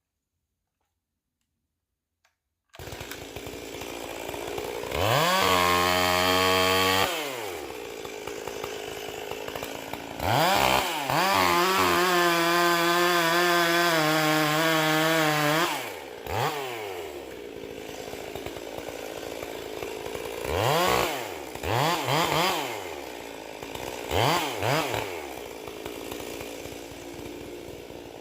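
Two-stroke chainsaw running: it comes in about three seconds in at idle, is revved high for a couple of seconds, then held at full throttle for about five seconds with its pitch dropping in steps. Three or four short throttle blips follow near the end.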